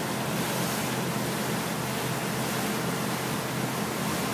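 Steady rushing noise of a motorboat under way: wind and water rushing past the hull, with the engine's low hum beneath.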